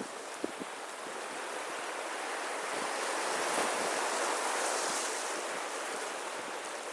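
Sea waves washing onto a beach: a surge of surf that builds over a couple of seconds, peaks in the middle, then slowly eases off.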